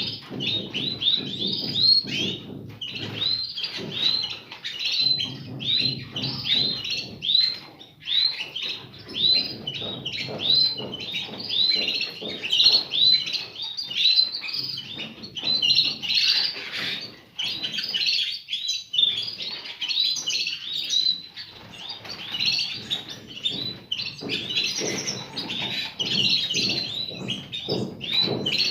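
Caged canaries and goldfinches chirping, a steady stream of short, rapid high chirps.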